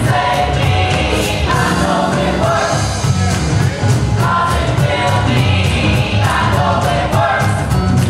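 Gospel choir singing with a live church band of keyboard and electric bass guitar, the music moving to a steady beat.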